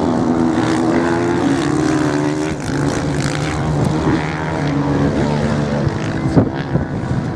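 Several dirt bike engines running and revving across the sand, their pitch rising and falling as the bikes pass. A brief sharp knock about six seconds in.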